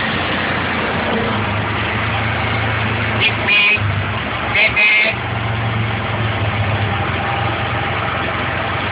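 Small engine of a three-wheeled mototaxi running steadily while riding along a street, with a horn beeping twice in quick succession around the middle.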